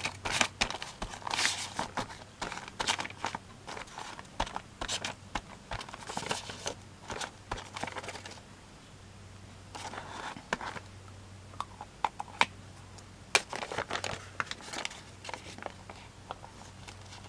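Crumpled brown kraft paper bag crinkling and rustling in irregular bursts with sharp crackles as it is handled, turned over and pressed flat by hand, with a short lull a little past the middle.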